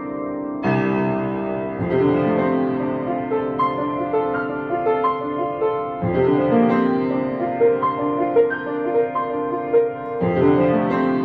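Grand piano playing a lively classical student piece, with quick runs of notes that ring on over one another.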